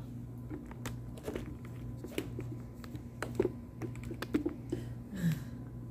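Scattered light clicks and taps from things being handled on a kitchen counter, over a faint steady hum. A short, low, falling vocal hum comes about five seconds in.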